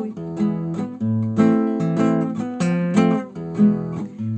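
Acoustic guitar strummed in a steady rhythm, playing the chord accompaniment of a ballad between sung lines.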